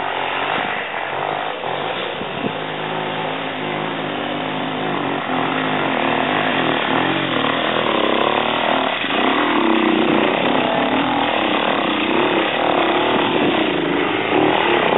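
Dirt bike engine revving up and down under load as it climbs a hill, growing steadily louder as it comes closer.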